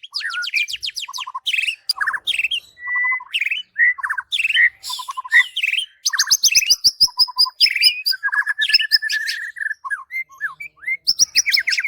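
White-rumped shama (murai batu) singing a long, varied song of rapid trills, clear whistled notes and short sharp phrases in quick succession.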